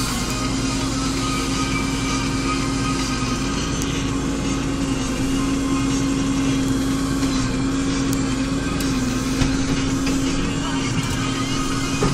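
Deutz-Fahr Agrotron M420 tractor engine running steadily, heard from inside the cab as a constant drone with a slight dip in pitch about nine seconds in.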